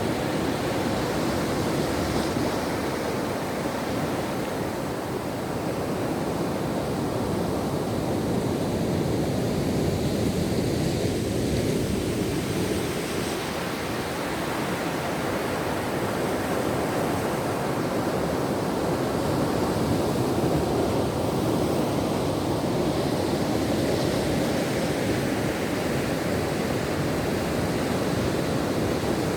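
Ocean waves washing onto a shore: a continuous hiss of surf that swells and eases slowly, with small dips in level a few times.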